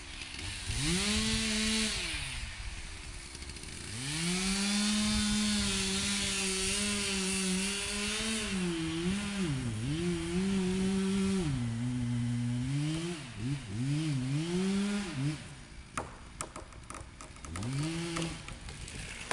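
Chainsaw cutting into a standing tree, the engine revving up, holding at full speed and dropping back several times. About three-quarters of the way through the engine falls away and a series of sharp cracks follows as the tree breaks and falls, with a short rev of the saw near the end.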